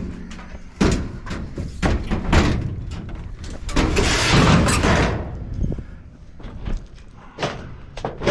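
Scrap metal being handled and loaded onto a trailer: several sharp bangs spread through the clip, with a longer scraping rush in the middle, like metal dragged across metal.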